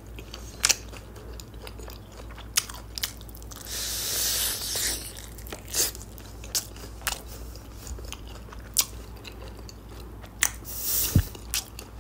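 Close-miked biting and chewing of a fish-sauce-glazed fried chicken drumstick: wet chewing with scattered sharp mouth clicks and smacks, and two longer hissy stretches, one about four seconds in and one near the end. The skin is soft rather than crispy, so there is little crunch.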